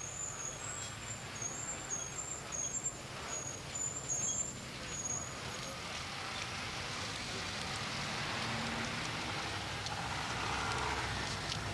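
Street traffic noise: vehicles passing, a steady rush that swells louder in the second half. Short high chirps come and go over the first few seconds.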